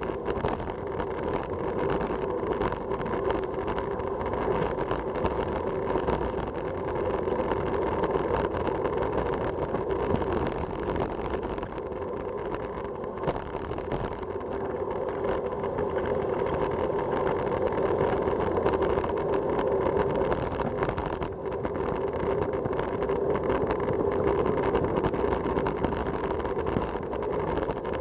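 Steady rush of wind and tyre noise from a road bicycle descending at speed, heard on its bike-mounted camera's microphone. It swells and eases slightly but never stops.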